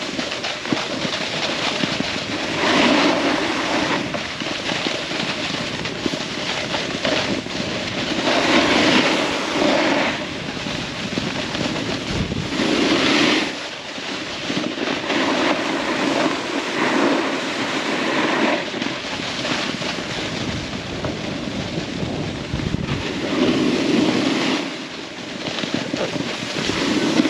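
Scraping hiss of sliding down a hard, icy ski slope, swelling and easing every few seconds, with wind rushing over the microphone.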